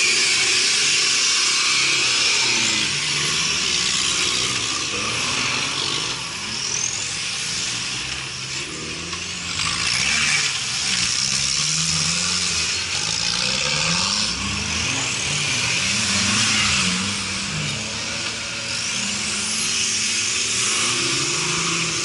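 Several off-road trial 4x4 engines revving hard under load as the trucks climb a steep rocky bank, the revs rising and falling and overlapping, over a steady high hiss.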